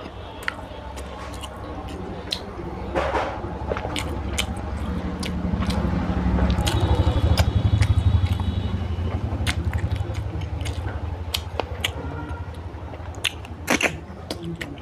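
Close-miked eating by hand: wet clicks and smacks of chewing and of fingers squishing rice and curry on a plate, with a low rumble that swells through the middle.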